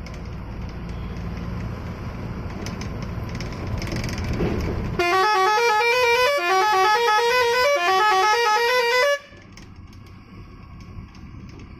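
Truck engine and road noise in the cab. About five seconds in, a loud multi-note melody horn plays a quick tune of stepping notes for about four seconds, then cuts off sharply.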